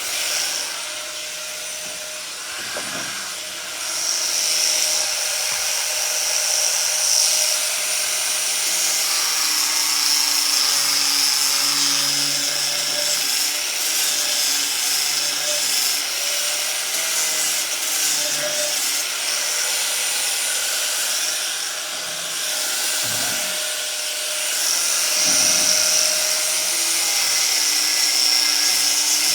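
A 4.5-inch angle grinder fitted with a 50-grit sandpaper disc, running steadily with a high whine and the rasp of the abrasive on wood as it sands a wooden table top. It eases off briefly a couple of seconds in and again near the 23-second mark.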